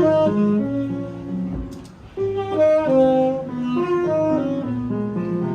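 Instrumental jazz music, a horn-like lead playing a melody of held notes over chords, with a short pause about two seconds in.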